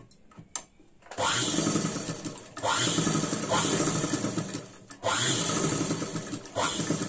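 Sewing machine stitching a seam along a corner line of a kurti's neck, in three runs of about one to two seconds each, each starting abruptly, with short pauses between.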